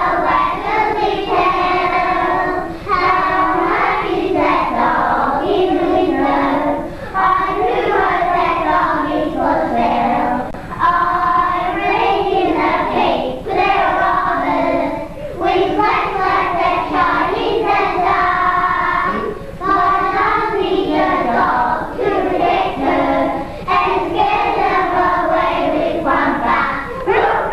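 A group of young children singing a song together in long phrases, with short breaks between them, over a steady low hum.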